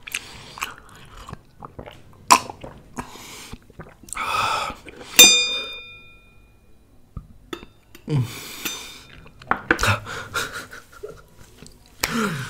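Metal spoon scraping and clinking in a stainless-steel bowl; one clink about five seconds in rings out for a second or so. Close-up chewing and mouth sounds come in between.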